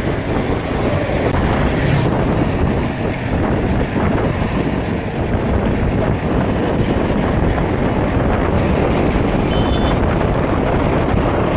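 Loud, steady wind buffeting on the microphone while on the move, with a low rumble of travel underneath.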